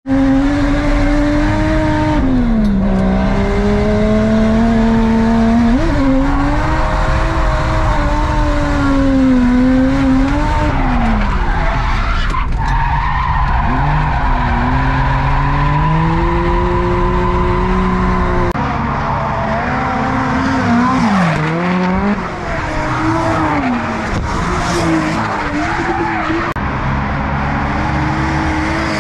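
A drift car's engine revving hard, its pitch climbing and dropping again and again as the car slides through corners, with tyres squealing. It is heard from inside the car's cabin for most of the time.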